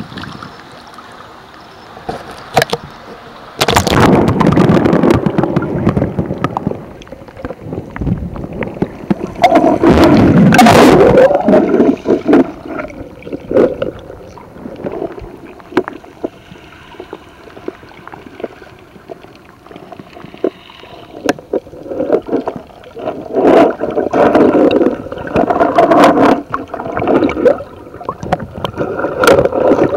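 Water sloshing and gurgling against a camera held at and below the surface, with loud surges of rushing, splashing water: one about four seconds in, one around ten seconds, and several close together in the last seven seconds.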